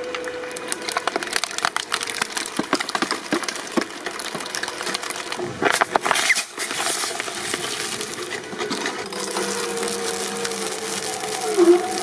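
Hydraulic press crushing an object, with a dense run of cracking and splintering that peaks about six seconds in. After that the crushing gives way to a steadier hum, with a wavering tone near the end.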